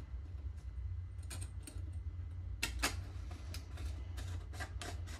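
Metal gun parts and bubble-wrap packing being handled: scattered small clicks and rustles over a steady low hum.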